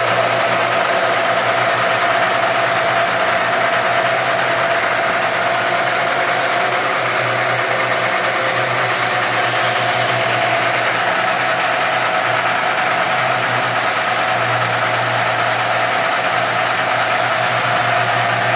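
Electric belt sanding machine running, its abrasive belt grinding and polishing the edge of a glass sheet held against it: a steady hum with a steady hiss over it.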